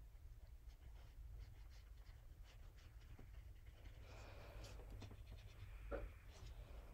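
Faint brushing and light ticks of a paintbrush working on watercolour paper, over a low steady hum, with one brief louder sound about six seconds in.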